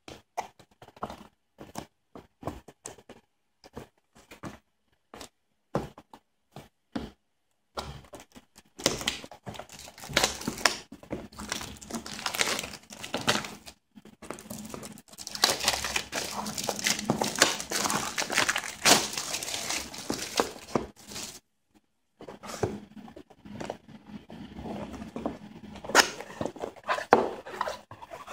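Clear plastic shrink-wrap being torn and peeled off a cardboard box, crinkling, with taps and clicks from handling the box. First only scattered clicks, then about nine seconds in the crinkling becomes dense and continuous, pauses briefly, and starts again.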